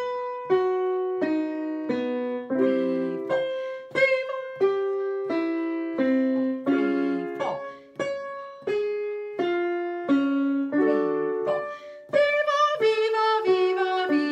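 Piano playing a vocal warm-up pattern: single struck notes, about three every two seconds, each dying away, stepping up and down over a small range of pitch.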